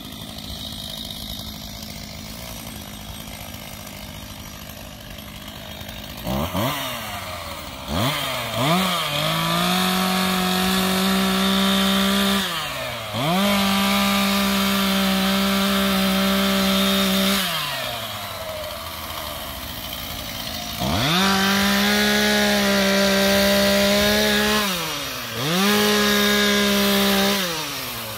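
STIHL MS 251 chainsaw's two-stroke engine idling, then blipped and revved to full throttle for four runs of a few seconds each while cutting through fallen branches, dropping back to idle between cuts.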